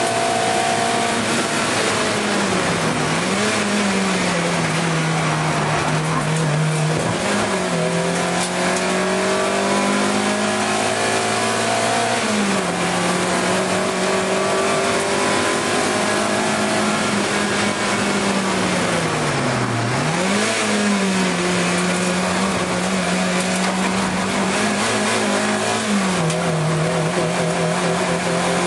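In-car sound of an Alfa Romeo 155 racing car's engine under hard load, its note held high for seconds at a time, then dropping and climbing back about five times as the driver brakes and changes gear into corners. A loud hiss of road and wind noise fills the cabin.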